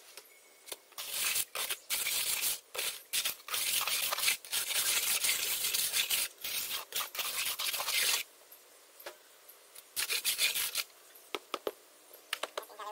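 A trowel scraping across wet sand-and-cement mix, smoothing and cutting the top of a filled wooden concrete-block mould: gritty scraping in quick strokes for several seconds, a pause about eight seconds in, then a shorter spell of scraping and a few light clicks.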